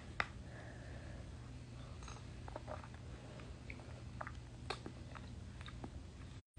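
Faint eating sounds: a few short clicks and smacks as yogurt is spooned from a plastic cup with a metal spoon and eaten. The sound drops out briefly near the end.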